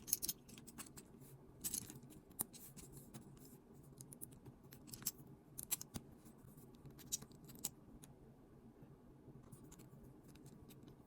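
Small plastic LEGO bricks clicking and tapping as they are handled and pressed together: irregular sharp clicks, thinning out after about eight seconds.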